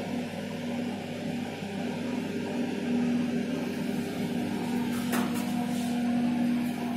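Steady machine hum with a low tone, and one brief click about five seconds in.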